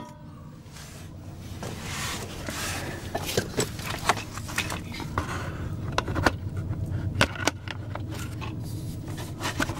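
Scattered light metallic clicks, knocks and short scrapes at irregular intervals, from hands and tools working on the car's front suspension, over a steady low hum.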